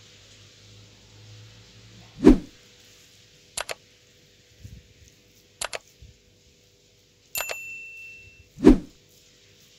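Sound effects of a subscribe-button animation: a low thump as the banner pops in, two quick double mouse clicks, a bell ding that rings for about a second, and another thump near the end.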